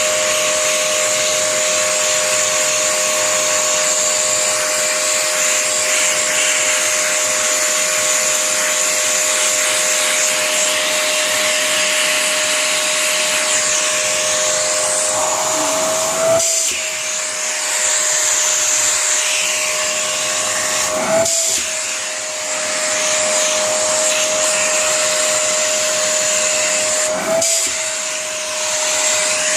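Vacuum cleaner running steadily, a motor whine over a rushing of air. Three times, at about 16, 21 and 27 seconds in, the whine briefly rises in pitch and the rush dips.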